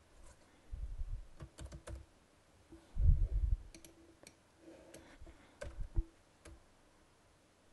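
Computer keyboard keys pressed in short, irregular clusters, with a heavier thump about three seconds in.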